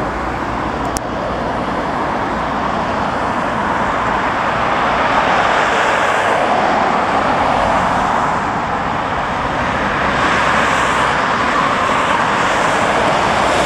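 Steady jet-engine noise from a Boeing 757 slowing on the runway after landing, swelling a little about five seconds in and again near the end.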